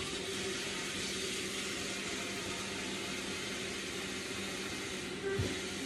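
Kitchen tap running steadily into a cooking pot, filling it with water for rice. It stops shortly before the end, followed by a soft knock.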